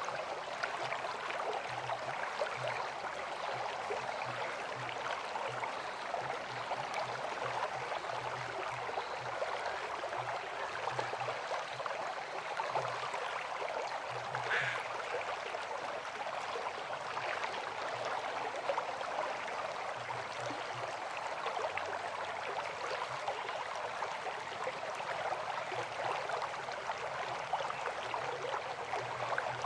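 River water flowing and splashing steadily. A short higher-pitched sound stands out briefly about halfway through.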